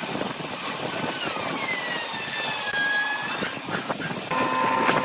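Woodturning lathe running, with a dense scraping noise of the workpiece being worked. A motor whine slides down in pitch over about two seconds, and a steadier whine comes in near the end.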